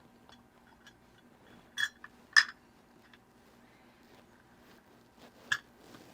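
Three short, sharp clicks of small hard parts being handled: two close together about two seconds in, and one near the end, over a faint steady hum.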